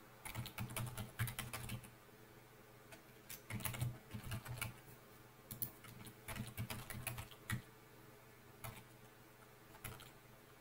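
Typing on a computer keyboard in several short bursts of key clicks, with pauses in between.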